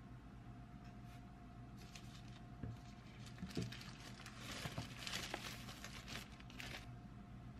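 Thin plastic packaging rustling and crinkling in hands during unboxing, in soft, irregular bursts through the middle, with a few light knocks, over a faint steady hum.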